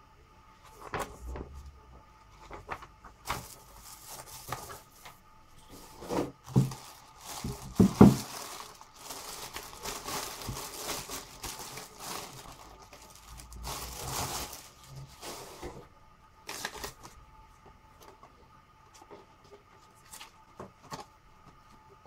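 Clear plastic wrapping crinkling and rustling as a cordless hammer drill is unwrapped. A few knocks from handling the drill come about six to eight seconds in, the loudest near eight seconds.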